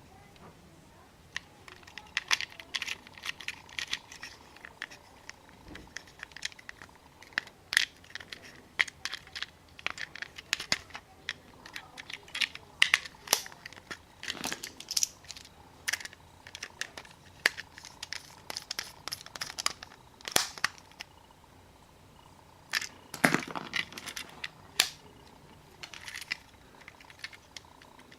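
Plastic and cardboard packaging being handled and torn open by hand: irregular crinkling, crackling and snapping.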